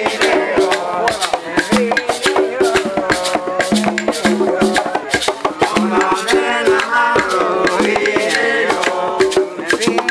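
Live Cuban rumba: hand-played conga drums and shaken maracas in a quick, steady rhythm, with voices singing over them.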